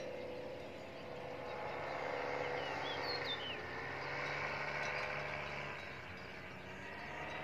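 Distant paramotor engine humming steadily, its pitch drifting slightly. A few bird chirps about three seconds in.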